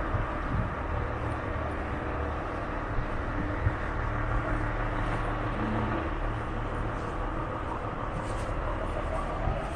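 Steady city street ambience: a continuous low rumble of road traffic, with a couple of faint knocks partway through.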